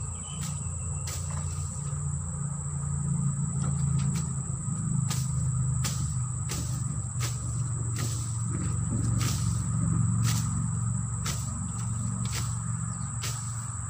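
Insects calling in two steady high-pitched tones over a louder low steady hum, with sharp ticks coming roughly once a second.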